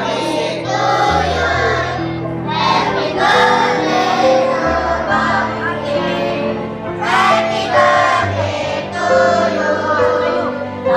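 A song with an instrumental backing of held bass and chord notes, and a group of children's voices singing.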